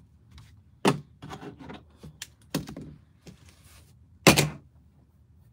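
A few sharp knocks and clicks of things handled on a desk, with lighter ticks between. The loudest, fullest knock comes about four seconds in.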